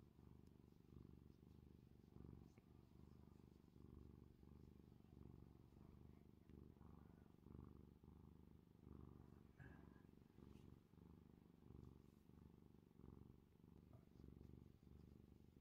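Tabby cat purring faintly and steadily, each purr swelling and fading with its breath about once a second, a contented purr while its head is stroked.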